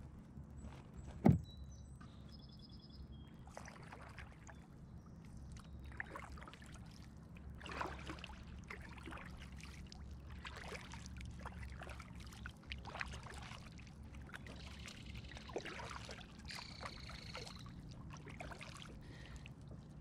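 Kayak paddle strokes dipping and dripping in calm water, one every second or two, over a low steady rumble. A sharp knock about a second in, and two short bird calls, one early and one near the end.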